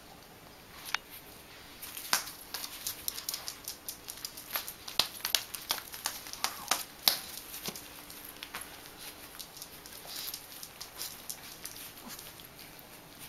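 Small dogs' feet, one pair in rubber-soled dog shoes, tapping and scuffing on a hard floor: irregular clicks, loudest around the middle.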